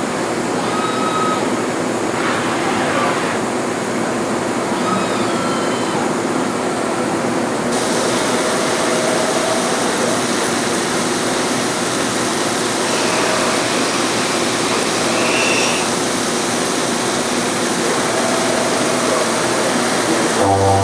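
Milltronics TTC40 twin-table CNC machining center running a machining cycle: a steady machine hiss with short faint whining tones coming and going. The hiss grows brighter about eight seconds in.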